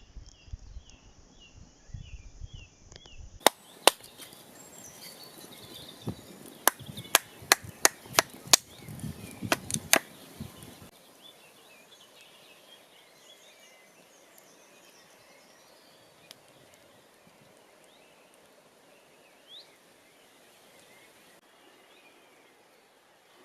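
About a dozen sharp chopping strikes on wood, coming in quick succession for about six seconds, with faint bird chirps in the quieter stretch that follows.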